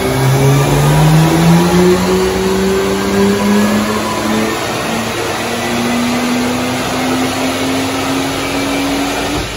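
BMW 135i's turbocharged 3.0-litre inline-six, tuned with a JB4 stage 1, making a full-throttle pull on a chassis dyno, the revs climbing steadily; the pull ends and the sound drops off sharply near the end.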